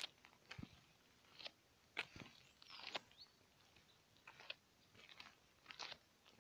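Faint crunching footsteps on grass and leaf litter, roughly one step every half second to a second.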